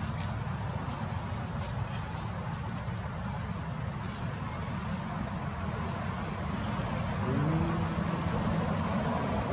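Steady high-pitched insect drone from crickets or cicadas over a constant low rumble. A brief low wavering tone comes in about three quarters of the way through.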